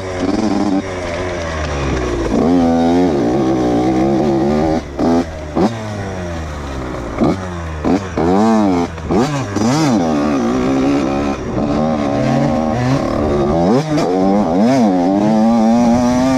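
Dirt bike engine revving up and down over and over as the rider works the throttle, with several brief drops where the throttle is shut off.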